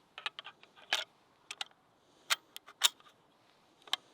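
A run of about eight sharp mechanical clicks and clacks at uneven spacing, the handling of a 600 Overkill big-bore rifle as it is readied for the shot.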